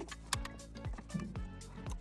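Background music with a steady beat, a low kick drum about twice a second.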